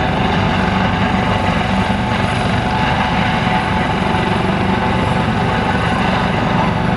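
Helicopter running steadily overhead, its rotor chop and turbine engine a loud, unbroken drone.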